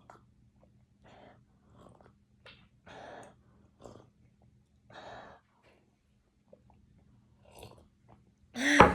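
A person's soft, irregular breaths, ending near the end in a loud voiced exhale.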